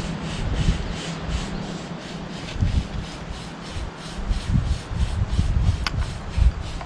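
Rhythmic scraping strokes, about three a second at first, with a single sharp click near the end.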